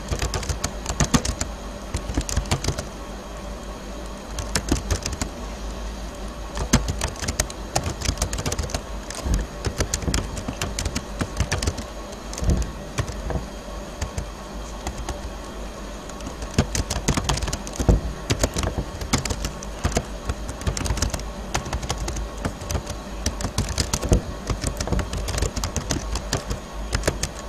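Typing on a computer keyboard: quick runs of key clicks broken by short pauses, over a steady background hum.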